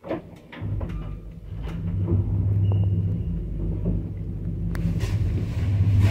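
A 1990 ZREMB passenger lift heard from inside its car: a sudden clunk as it starts, then the hoist machinery running with a steady low hum and rumble while the car travels, with scattered clicks and rattles.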